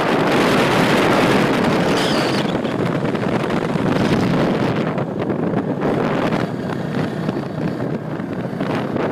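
Wind rushing over the microphone of a moving motorcycle, with the engine running underneath.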